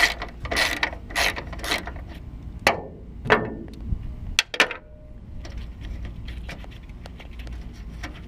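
Hand ratchet wrench clicking as a fender bolt is backed out: strokes about every half second for the first two seconds, a few sharp clicks about halfway through, then lighter, quicker clicking.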